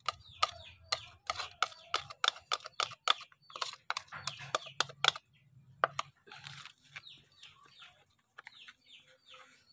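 A quick run of sharp clicks, about four a second, for the first five seconds, then birds chirping in short falling calls.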